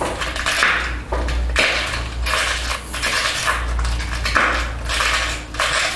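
Glass being pressure-flaked on a small wooden block: a string of short, crisp crunching scrapes, roughly one a second, as the glass edge grates and flakes chip off under the pressing tool.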